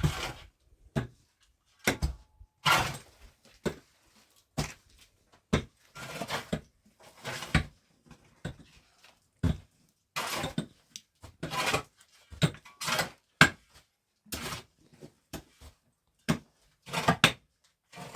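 A string of irregular knocks, scrapes and clatters, each brief and broken by short pauses: handwork with tools or objects against hard surfaces.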